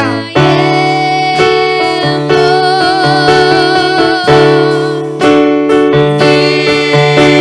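Music: an electric keyboard playing sustained chords that change about once a second, with a wavering held note riding above them.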